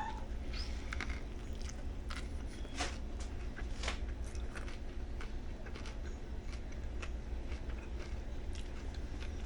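A man chewing and biting into a ham sub sandwich, with faint, scattered soft clicks over a steady low hum.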